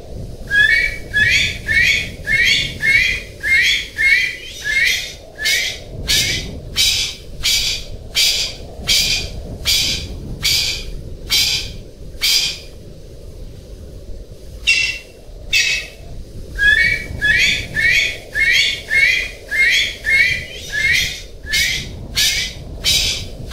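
Male golden pheasant calling: a rapid series of short, shrill, harsh calls, about two a second, with a pause of a couple of seconds past the middle before the series starts again, over a steady low background noise.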